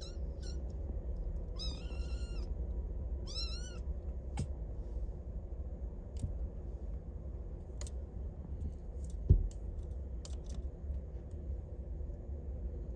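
A young British Shorthair–Ragdoll cross kitten mewing twice, high-pitched, in the first few seconds. Later come a few light clicks and one sharp thump, the loudest sound, about nine seconds in.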